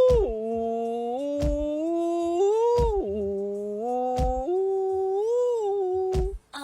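Music: a smooth lead melody that holds notes and slides between them, over a kick drum thumping about every second and a half. It breaks off suddenly near the end.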